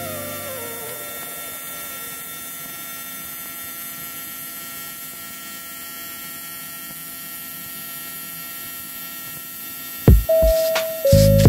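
Steady electrical hum with several fixed tones. A chime fades out at the start, and about ten seconds in a loud held tone and heavy thumps break in.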